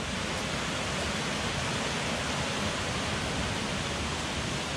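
Steady rush of running water from a fast-flowing woodland beck, an even hiss with no rhythm or breaks.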